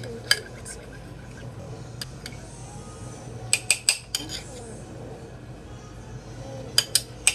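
A utensil clinking and knocking against a bowl while toothpaste and shaving cream are mixed in it. There are scattered single clinks, a quick run of several about halfway through, and three more near the end.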